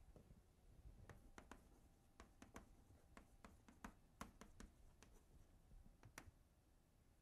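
Near-quiet room with a scattered series of faint, sharp clicks and taps over a low hum.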